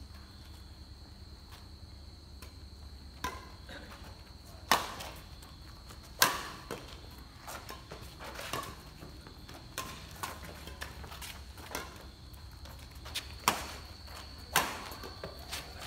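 Badminton rackets striking a shuttlecock in a rally: sharp cracks every second or two, the loudest about five and six seconds in and again near the end. A steady high insect trill runs underneath.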